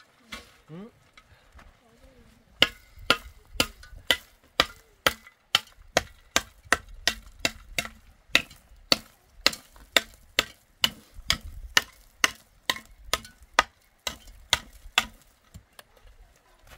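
A steady series of sharp knocks, about two a second, starting a few seconds in and stopping shortly before the end, each with a brief ring.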